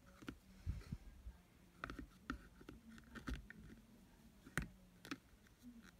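Scattered light clicks and taps of hard plastic as PVC figures and their display bases are handled and fitted together, with a faint steady room hum beneath.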